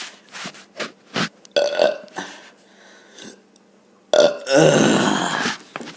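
A person burping: a few short sharp sounds early on, then one long, loud burp about four seconds in that lasts about a second and a half.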